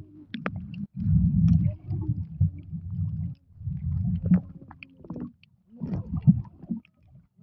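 Muffled underwater rumble of water moving around a submerged camera: low surges, each about a second long, with short breaks between them and scattered small clicks and ticks.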